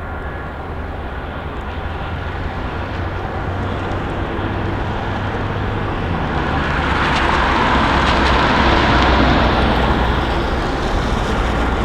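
CN freight train led by GE ES44AC diesel locomotives approaching: a steady low engine drone under a rushing roar that grows louder, swelling most about eight to nine seconds in.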